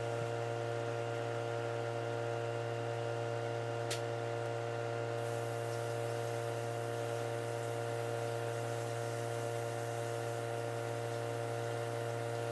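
A steady hum made of several held tones that do not change, with a faint click about four seconds in.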